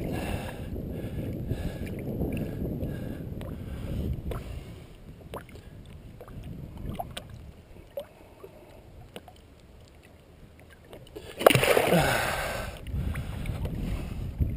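Water sloshing around a muskie held in a landing net at the boat's side, with a few light clicks in the middle, then a loud splash about three-quarters of the way through as the fish thrashes in the net.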